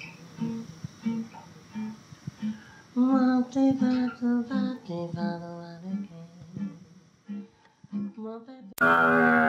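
Acoustic guitar picking a jazzy tune on a home tape recording, with a melody line coming in over it about three seconds in. Near the end the sound cuts abruptly to a much louder held note.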